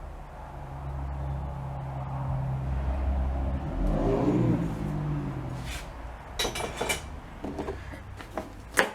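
A motor vehicle's engine passes by, building up to a peak about halfway through and then fading, followed by a few sharp clicks of small plastic trim pieces being handled.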